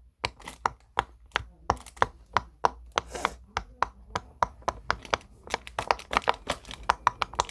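Silicone pop-it fidget toy (rainbow heart-shaped) being popped bubble by bubble: a string of short, sharp pops, about three a second and unevenly spaced.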